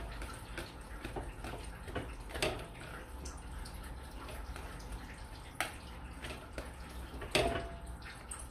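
Wire whisk working thick mashed potato in a plastic bowl: soft, wet squelching and scraping, with a few sharper clicks of the whisk against the bowl.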